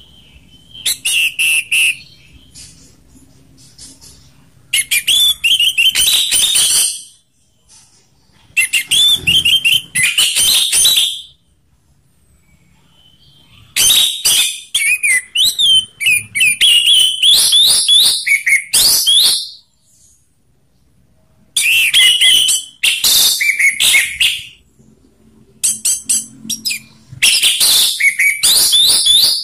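Orange-headed thrush (anis merah) singing its loud full 'ngeplong' song: fast whistled phrases and quick chirps in bouts of a few seconds, broken by short pauses. This is the kind of song that keepers play to spur their own birds into singing.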